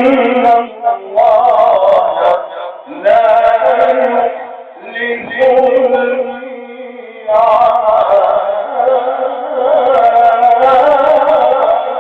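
A man's voice reciting the Quran in long, ornamented melodic phrases, each held and wavering in pitch, with short breaks for breath between phrases.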